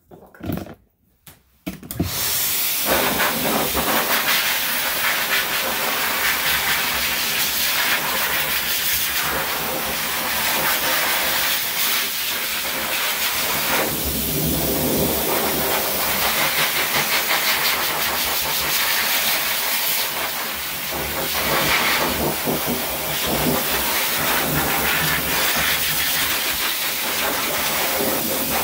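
Dog-grooming dryer blowing a strong jet of air through its hose, switched on about two seconds in and then running steadily as a loud rushing hiss, swelling and dipping a little as the nozzle is moved over a wet puppy's coat.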